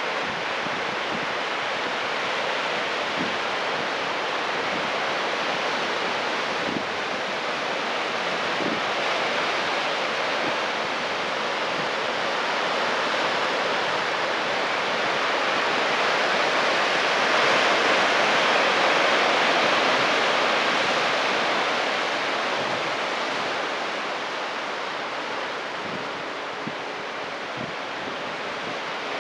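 Ocean surf breaking and washing over a rocky shore: a steady hiss of waves and foam that swells to its loudest a little past halfway and then eases off.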